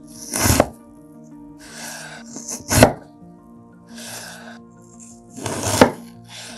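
Chef's knife cutting fresh ginger on a wooden cutting board: three sharp knocks of the blade against the board, about half a second in, near three seconds and near six seconds, with softer crunchy slicing sounds between them. Background music with steady held tones runs underneath.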